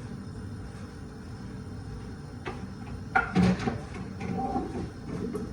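Kitchen handling noises over a steady low hum: a single click about two and a half seconds in, then a louder clatter a second later, followed by lighter knocks.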